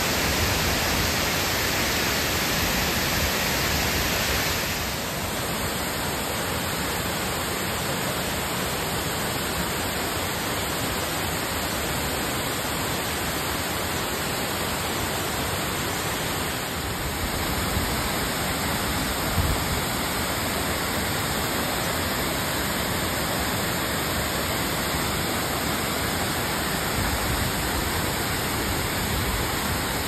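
Multi-tiered waterfall cascading over limestone terraces: a steady, dense rush of falling water. Its tone shifts slightly about five seconds in and again about seventeen seconds in.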